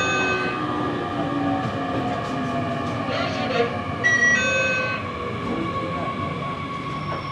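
Electric train running along a station platform, its motors whining in tones that slowly fall in pitch as it slows. Under this is a steady high tone. A short electronic chime sounds at the start and again about four seconds in.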